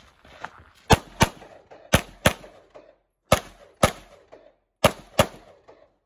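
Compact carry pistol firing eight shots as four quick double-taps, about a second apart, each crack followed by a short echo.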